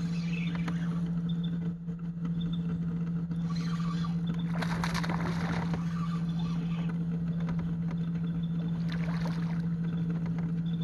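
Boat motor running with a steady low hum, while a hooked smallmouth bass splashes at the surface twice, once around the middle and again near the end, as it is played on the rod.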